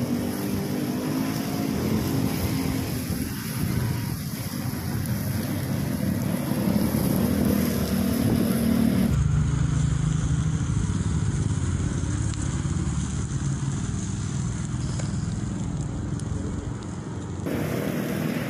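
A motor running steadily, a low engine-like rumble. The sound changes abruptly about nine seconds in and again near the end.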